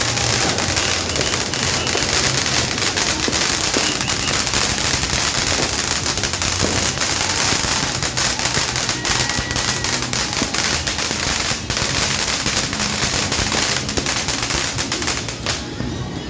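Fireworks going off in a dense, rapid, unbroken crackle of pops, cutting off just before the end.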